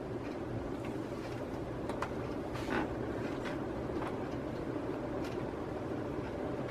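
Casablanca Panama ceiling fan running, a steady rush of moving air over a low hum, with a few faint irregular ticks.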